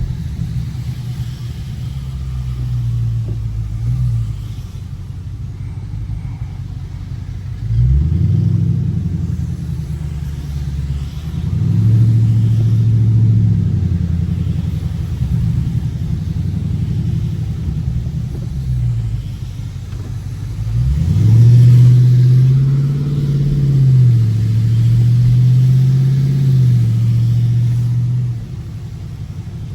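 Dodge Scat Pack's 6.4-litre 392 HEMI V8 running as the car is driven, its revs climbing steeply three times (about eight seconds in, near twelve seconds and around twenty-one seconds) and easing back down between.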